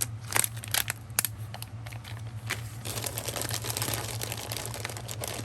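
Small resin cabochons and their plastic packaging being handled: a few sharp light clicks and taps, then plastic crinkling from about three seconds in.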